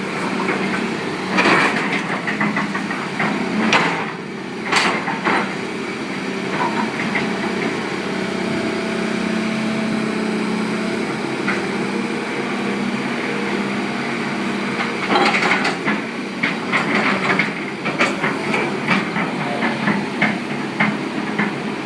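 A Hitachi EX200-5 excavator's diesel engine running at a steady idle. Scattered knocks and clicks sound over it, a few near the start and many more in the last third.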